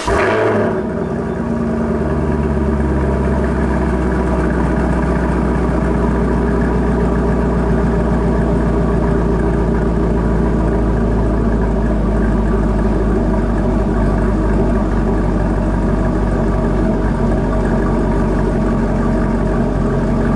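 Chevrolet Camaro engine idling steadily right after being started. The start-up flare settles into an even idle within the first second.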